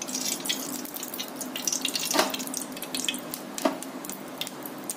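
Refined cooking oil poured in a thin stream into an empty metal kadai, with a scattering of small clicks and crackles; two sharper clicks come about a second and a half apart midway.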